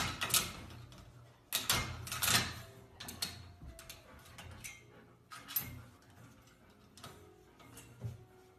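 Plastic latch handle of a metal baby gate clicking and rattling as a puppy mouths and tugs at it, in irregular bursts of clicks that grow sparser toward the end.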